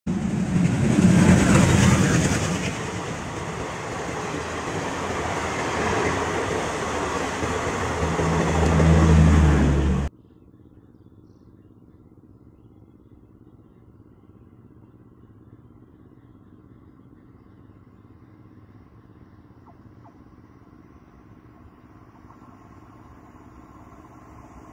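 Road traffic engines running and revving loudly, with a motorcycle among them; the sound cuts off abruptly about ten seconds in. After the cut there is only quiet open-air stillness with a faint steady low hum.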